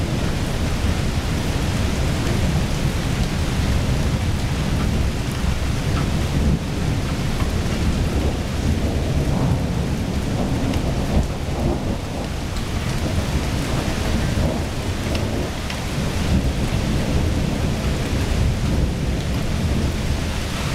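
Thunderstorm: steady rain with a continuous low rumble of thunder.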